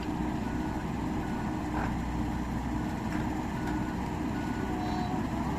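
Heavy diesel machinery running steadily, with faint short high beeps coming and going.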